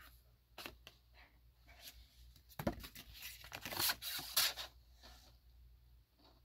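Stiff card stock rustling and crackling as a folded accordion postcard strip is pulled open, with a few light taps at first and the loudest crackle for about two seconds in the middle.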